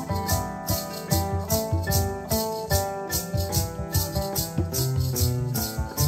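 Acoustic guitar strummed while several hand-held maracas are shaken together in a steady rhythm, about four shakes a second.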